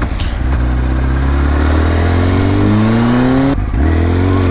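Supersport motorcycle engine accelerating, its pitch climbing, with a brief drop at a gear change about three and a half seconds in before it climbs again.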